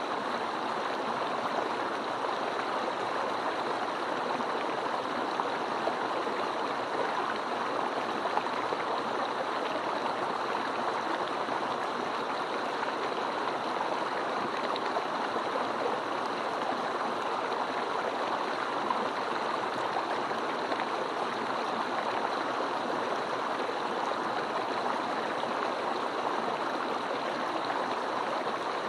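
Mountain stream rushing and gurgling over rocks, a steady, even flow of water.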